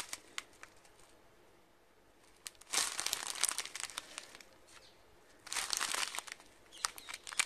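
Small plastic bags of round diamond-painting drills crinkling as they are handled, in two bursts about three and five and a half seconds in, with a few light clicks near the end.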